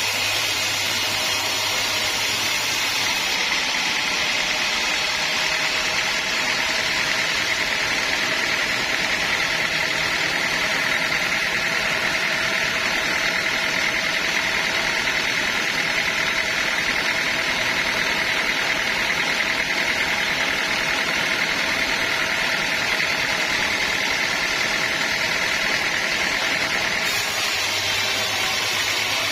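Sawmill machinery running steadily with an even high-pitched whine, typical of a band sawmill blade cutting a teak log. The sound shifts slightly about three seconds in and again near the end.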